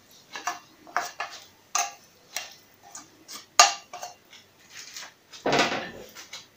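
A spoon scraping and knocking against a metal pan and a ceramic baking dish while filling is spooned out and spread: a string of short clicks and scrapes, one sharp louder knock about halfway through, and a longer, louder scrape near the end.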